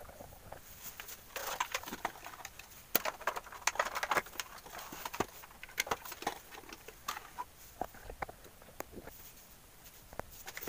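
Scattered light clicks, knocks and rustling as a CRT television's connector plugs and wiring are pulled off and its main circuit board is handled.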